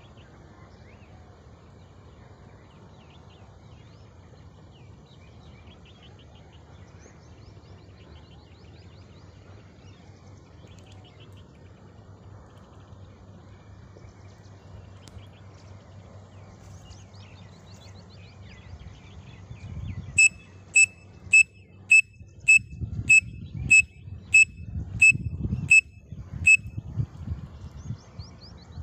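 Pen-cap whistle blown to imitate a grey francolin (teetar) call: about a dozen short, shrill notes of the same pitch at roughly two a second, starting about two-thirds of the way in. Before the notes, faint wild bird chirps over a low outdoor rumble.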